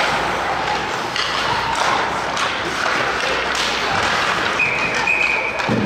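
Ice hockey game sounds in an arena: scattered thuds and taps of sticks and puck over a noisy background. About four and a half seconds in, a steady high whistle sounds and holds past a second.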